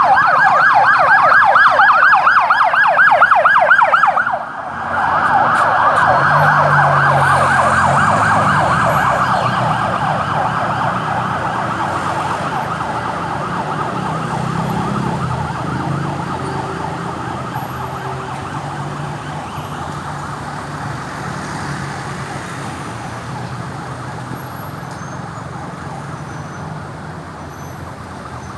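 Ambulance electronic siren on a fast yelp. About four seconds in it breaks off briefly and restarts on a quicker warble, then gradually gets quieter as the vehicle moves away, with engine noise underneath.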